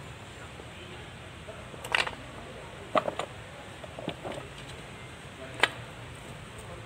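Sharp metallic clinks and knocks of steel gears and parts being handled in the open transmission case of a Kubota B6001 tractor. They come in a few separate clusters, and the loudest single knock falls near the end.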